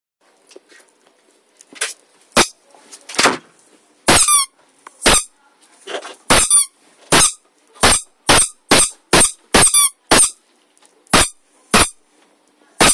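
Bed squeaking and knocking under a jumping puppy: a rapid run of short, sharp squeaks with thuds, about two a second for most of the time, sparser near the start.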